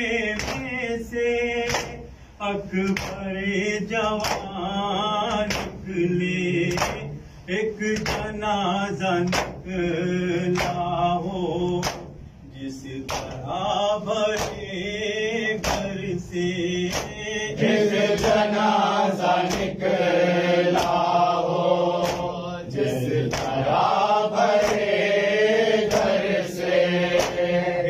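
Male voices chanting a noha lament together, in rhythm with matam: open hands slapping chests in sharp, evenly spaced strikes that keep a steady beat throughout.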